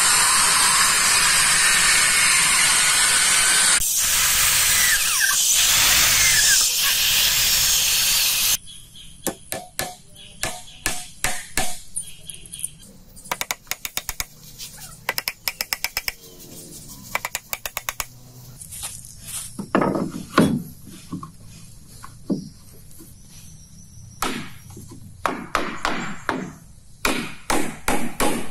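A power tool runs loudly and steadily for about eight seconds, its sound changing about four seconds in, then stops suddenly. A long series of knocks and taps follows: a quick run of light taps in the middle and heavier single blows near the end, typical of hammering on timber.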